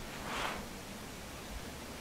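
A brief soft rustle that swells and fades within about half a second near the start, over a steady hiss.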